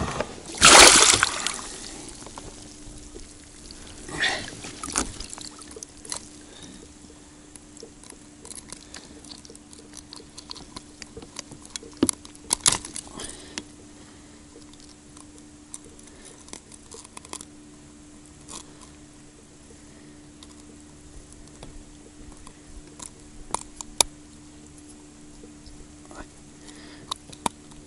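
Water splashes and pours off a landing net as it is lifted out of the lake into the boat with a pike in it, about a second in. After that come scattered clicks, rattles and knocks from handling the fish in the net and working the lure free with pliers.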